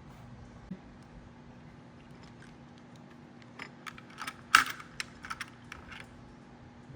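Small, sharp clicks and taps of computer parts being handled during a CPU installation. A run of them comes in the second half, the loudest a little past the middle.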